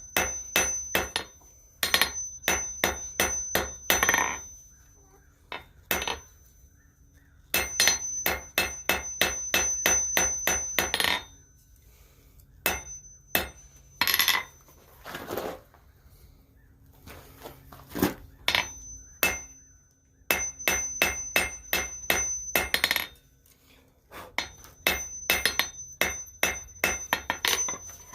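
Hand hammer striking steel on an anvil in quick runs of blows, about four a second, each blow followed by a high ring, with short pauses between the runs.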